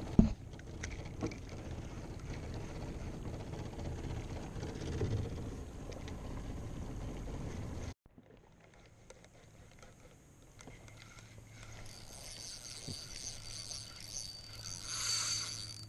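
Fishing reel being cranked to retrieve a lure, over low rumbling noise that cuts off suddenly about eight seconds in. A sharp knock right at the start.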